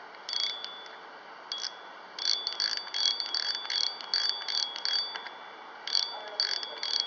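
Drag clicker of a Seahawk Strike Wolf II spinning reel, clicking fast as the spool is turned by hand against the drag, with a high metallic ringing note. It comes in short bursts: a brief one at the start, another about a second and a half in, a long run from about two to five seconds, and a last burst near the end.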